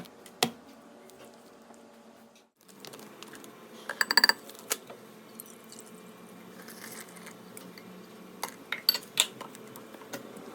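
Kitchen utensils clinking and tapping against dishes, with a quick run of ringing clinks about four seconds in and a few more near the end.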